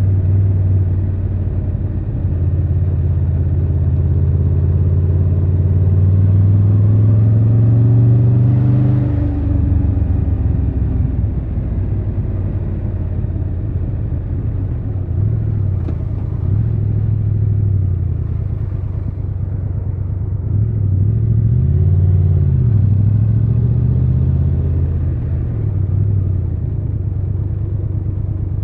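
Triumph Tiger 1200 Rally Pro's inline three-cylinder engine under way. Its pitch rises steadily for about nine seconds, then drops sharply. Later it rises and falls briefly twice more.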